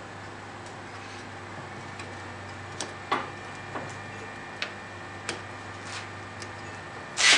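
Light clicks and taps, a little under one a second, from a rubber tire being worked by hand onto the upper wheel of a Craftsman 103-24250 bandsaw. A louder rubbing scrape comes right at the end.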